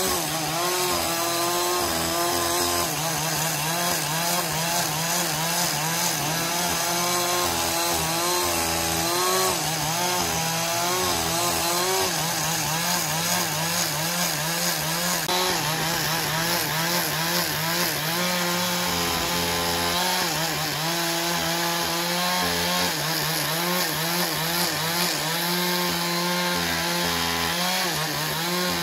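A motor-driven saw cutting through wood, running steadily, its motor pitch wavering up and down as the load on the blade changes.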